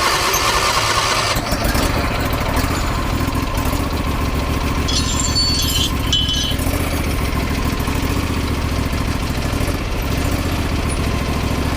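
Craftsman lawn tractor engine running steadily, being tested after a new ground drive belt was fitted. A brief higher hiss comes in about five seconds in.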